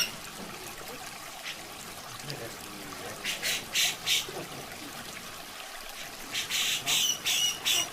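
Grey-cheeked bulbul (cucak jenggot) giving short, scratchy calls in two runs, one about three seconds in and another near the end, over a steady trickle of running water.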